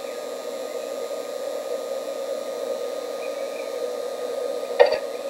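Steady hum and hiss from a nest-box camera's audio feed. Near the end comes a sudden knock and scrabble at the box as a nuthatch arrives.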